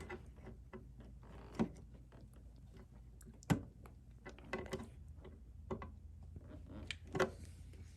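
Sparse light clicks and taps of hand tools handling a battery cable end during crimping, the sharpest about one and a half and three and a half seconds in, with a few more near the end, over a low steady hum.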